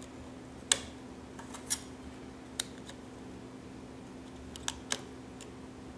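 AAA batteries pressed into the spring contacts of a Wixey WR510 digital planer readout and its small plastic battery cover snapped shut: several sharp little clicks, the loudest about a second in and two close together near the end. A steady faint hum lies underneath.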